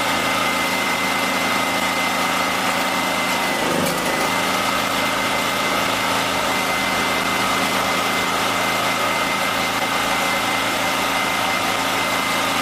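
Small portable petrol generator engine running steadily as its fuel supply is switched from LPG back to gasoline, the engine keeping going through the changeover.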